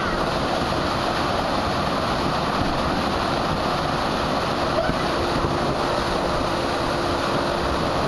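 Pool waterfall: a curtain of water pouring steadily into a swimming pool close by, an even, unbroken splashing.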